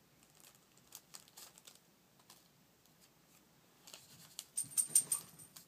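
A small plastic packet of blush papers being torn open and handled: soft crinkling and tearing, with a denser run of sharper crinkles about four seconds in.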